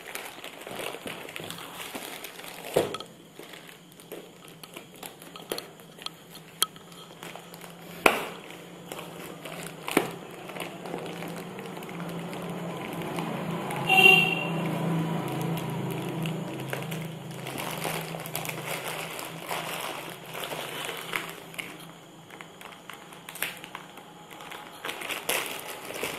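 Plastic courier mailer bag being cut and torn open by hand, with scattered crinkling, rustling and sharp clicks. About halfway through, a short pitched tone over a low hum is the loudest sound.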